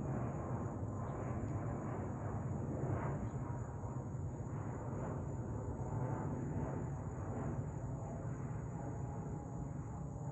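Twin-engine jet airliner flying overhead at altitude: a steady, distant rumble of jet engine noise that eases slightly near the end.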